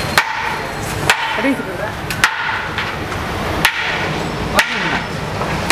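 Steel serving ladle knocking on metal as biryani is scooped out of a large aluminium vessel and dished onto a steel plate: sharp clanks about once a second, the 'tok tok tok' sound that marks a biryani shop serving.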